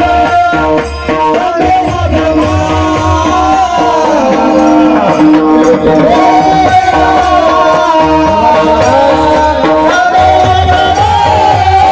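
Marathi devotional bhajan music: a singer's long, wavering alaap glides over steady held accompaniment tones, with drum beats and jingling hand percussion keeping time.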